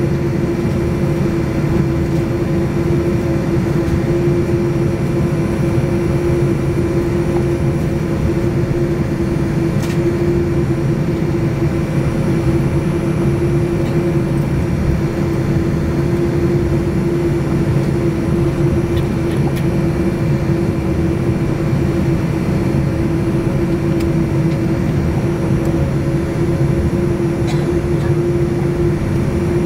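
Cabin noise inside a Boeing 787-9 taxiing with its GEnx-1B engines at idle: a steady drone holding one constant mid-pitched hum over a low rumble.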